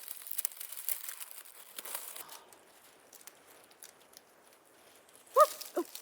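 Crinkling rustle of brush being pushed aside for about the first two seconds, then near the end two short, loud squeaky calls with a bending pitch, duck-like.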